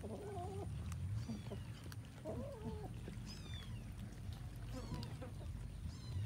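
A crowd of cats feeding together from one pile of rice and fish, giving two short low wavering cat calls in the first three seconds. Short high chirps come several times throughout.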